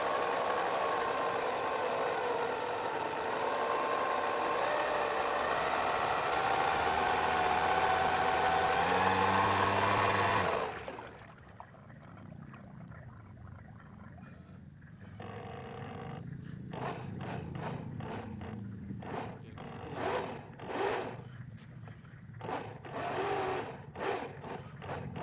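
The DC 775 electric drive motor of an RC model boat running with a steady whine, rising in pitch as it speeds up. About eleven seconds in, it cuts off suddenly, leaving quieter irregular short knocks and rustles.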